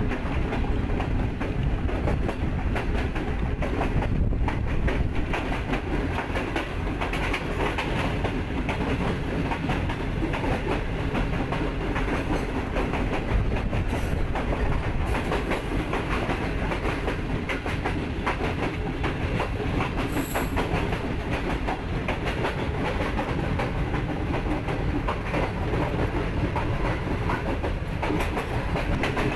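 Wheels of a moving CRRC Tangshan passenger coach running on the rails: a steady rumble with rapid clickety-clack of wheels over the track.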